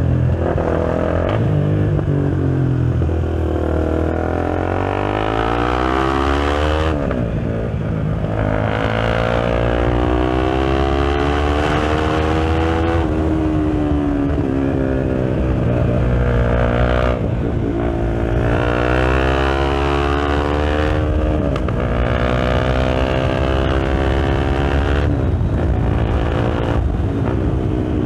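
KTM Duke 390's single-cylinder engine through an aftermarket BlackWidow exhaust, heard from the rider's helmet. The engine note keeps rising in pitch under acceleration and falls back sharply every few seconds as the bike climbs a winding road.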